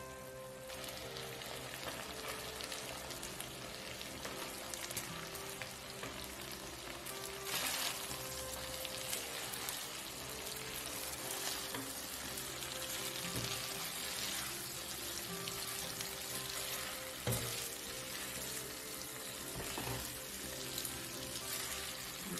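Shrimp and sauce sizzling steadily in a hot frying pan. The sizzle flares louder about seven and a half seconds in, and there are a few sharp knocks of tongs against the pan as the spaghetti is tossed.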